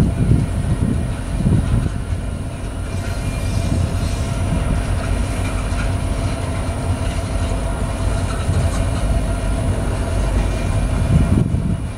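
Covered hopper cars of a freight unit train rolling past, with a steady rumble of steel wheels on rail and clickety-clack from the wheel sets. There are heavier thumps of passing wheel trucks near the start and again near the end.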